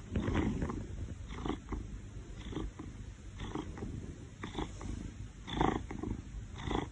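Domestic cat purring close up: a steady low rumble that swells softly about once a second with each breath.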